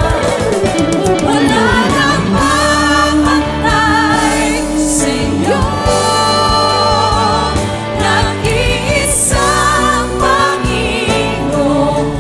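Gospel worship song sung by a group of singers with vibrato, over steady instrumental backing.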